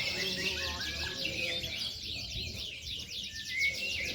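Many domestic canaries singing at once, a dense, unbroken tangle of rapid trills and chirps, with a faint murmur of voices underneath in the first second or so.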